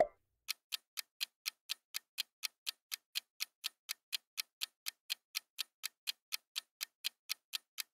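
Clock-tick sound effect counting down a quiz timer: short, even ticks at about four a second.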